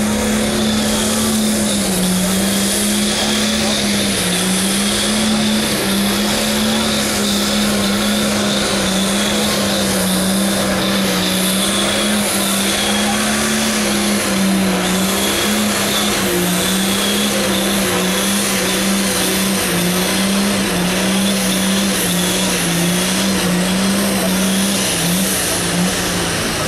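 Modified tractor's diesel engine running flat out under full load as it drags a tractor-pulling sled. It makes a loud, steady high-revving drone that wavers only slightly in pitch.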